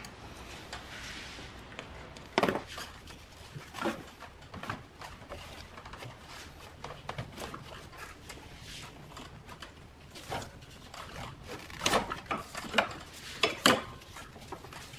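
Scattered clicks, knocks and rubbing of hard plastic as a 2017 Nissan Pathfinder's radiator fan assembly is worked loose and shifted by hand in the engine bay, with one louder knock about two and a half seconds in and several more near the end.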